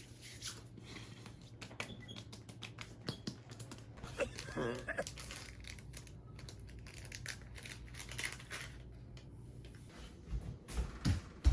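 Irregular light clicks and rustling, like things being handled, over a steady low hum.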